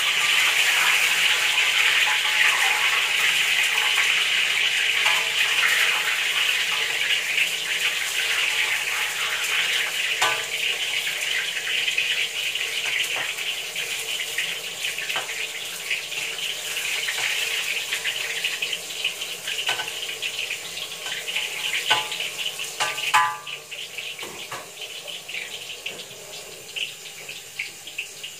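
Steady hiss of a kitchen tap running into a stainless steel sink, mixed with fritters sizzling in oil in a wok. From about ten seconds in, a metal spatula clinks against the wok now and then, loudest a little before the end, and the hiss fades over the last few seconds.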